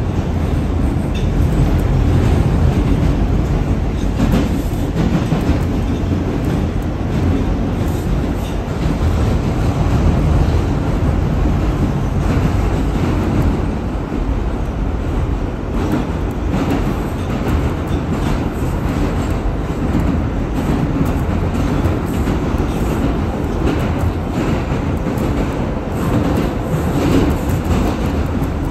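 R142 subway car running at speed, heard from inside the car: a steady, loud rumble of the wheels on the rails, with scattered clicks over the track.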